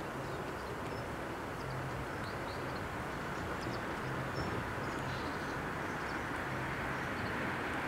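Rumble of an approaching double-deck regional train, a steady rushing noise that grows slowly louder, with faint high chirps scattered over it.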